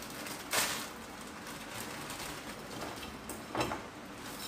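Plastic wrapper of a Maggi instant-noodle packet rustling and crinkling as it is handled and emptied over a steel pot, with two brief louder bursts, the first and loudest about half a second in.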